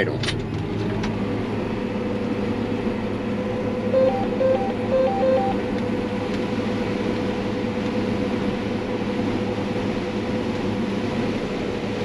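Combine harvester running at high idle with its separator, chopper and corn head engaged while harvesting corn, a steady machinery drone heard from inside the cab. About four seconds in comes a quick run of five short two-tone electronic beeps.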